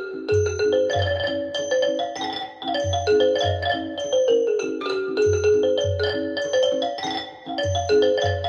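Music played back through a pair of Wilson Audio WATT/Puppy 7 floor-standing loudspeakers: a run of quick pitched notes over a deep bass pulse that comes about once a second.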